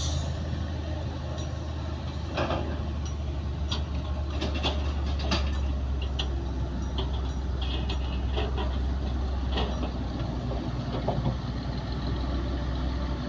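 Bulldozer diesel engine running steadily at a low drone, with repeated short metallic clanks and clicks scattered over it, typical of a crawler dozer's steel tracks and blade at work.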